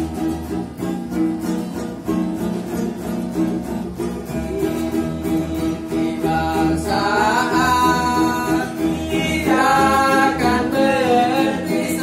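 Background music: a steady accompaniment, with a voice singing from about seven seconds in.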